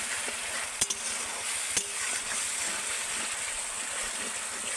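Onion, ginger-garlic and tomato masala paste sizzling in hot oil in a metal kadai while a metal spatula stirs it, with two sharp clicks of the spatula against the pan about a second apart near the start. This is the masala being fried down (kosha) until it turns red and releases its oil.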